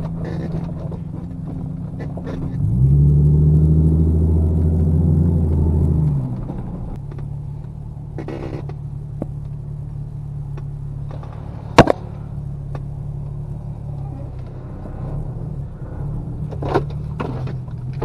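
Ford Explorer Sport Trac's 4.0 L V6 running at low speed, heard inside the cab. About three seconds in it is given throttle: the note rises, runs louder for about three seconds, then drops back to a steady low drone. A single sharp click comes near the twelve-second mark.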